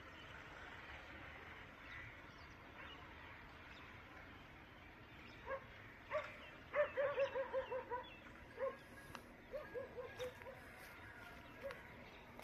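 A dog barking, starting about five seconds in: a few single barks, then a quick run of about eight in a row, then a few more scattered barks, over a faint steady outdoor background.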